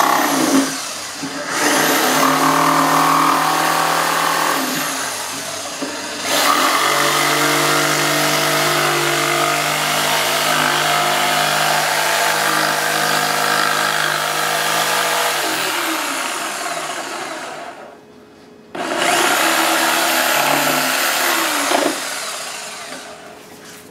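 Bosch corded jigsaw cutting into the wooden wall of a Marshall 1960A guitar speaker cabinet to widen the handle opening. The motor runs in several long stretches, its pitch shifting as the blade works. It stops briefly about three-quarters of the way through, then starts again before winding down near the end.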